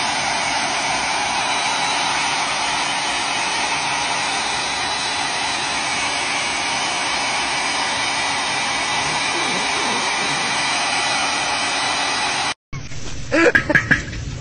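Hand-held hair dryer blowing, a steady rush of air with a faint motor whine. It cuts off abruptly near the end, followed by a short burst of a person's voice and laughter.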